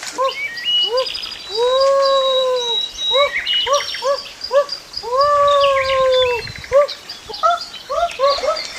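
An animal crying out again and again in short rising-and-falling yelps, with two longer drawn-out cries of about a second each, one about two seconds in and one about five seconds in. Birds chirp in the background.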